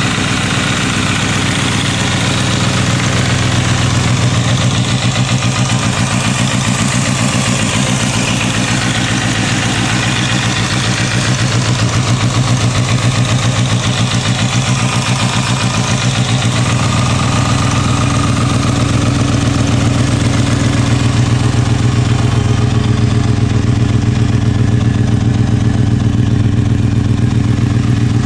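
Kawasaki Balius 250's inline-four engine running at a steady idle through an aftermarket OVER silencer.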